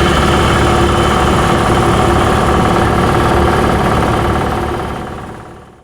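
Belt-driven two-stage air compressor running steadily, with a constant hum over the clatter of the pump, its belt freshly tightened by a welded tensioner bracket. The sound fades out near the end.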